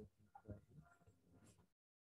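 Faint scrapes and soft taps of a spoon stirring wet clay in a plastic cup, a few separate strokes rather than a steady sound.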